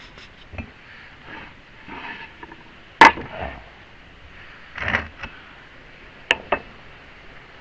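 A few sharp knocks and clanks of hard parts being handled on a home-built steel bee-box lifter. The loudest comes about three seconds in, another near five seconds, and two quick clicks follow after six seconds, over a faint steady hiss.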